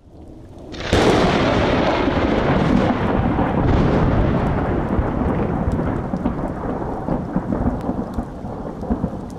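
Intro sound effect of thunder and rain: a sudden loud crash about a second in, then a long rumbling rush of noise that slowly fades.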